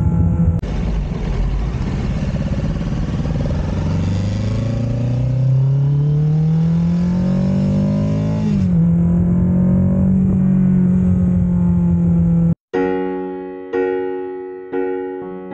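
Kawasaki Ninja 650 parallel-twin engine through an Ixil RC aftermarket exhaust, pulling with the pitch climbing steadily for several seconds, dropping once, then holding steady. About twelve seconds in it cuts off and piano music takes over.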